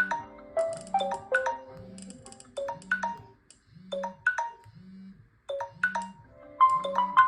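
A smartphone alarm tone playing a melody of short, bright notes that die away quickly. The notes thin out for a couple of seconds near the middle and then start again, over a low pulse that comes about once a second.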